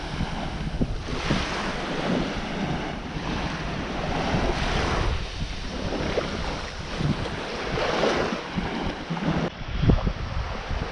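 Small sea waves washing onto a beach, swelling and easing every second or two, with wind buffeting the microphone.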